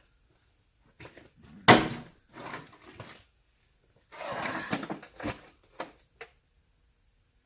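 Parts of a mini bike being handled during teardown: one sharp clunk, then scraping and a few lighter knocks, ending in a small metallic tick.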